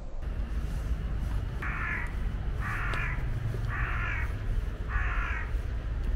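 A crow cawing four times, about a second apart, over a steady low rumble.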